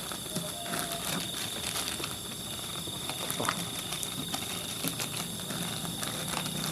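An insect trilling steadily in one high, unbroken tone, with scattered small clicks and taps.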